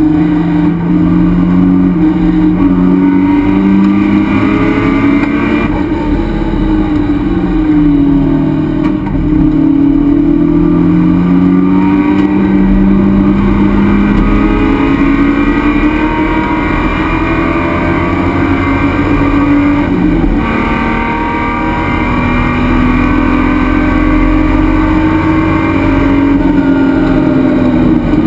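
Race car engine heard from inside the stripped, roll-caged cockpit, running hard under load, its pitch rising and falling again and again as the car accelerates and slows, with a sudden break in pitch about twenty seconds in.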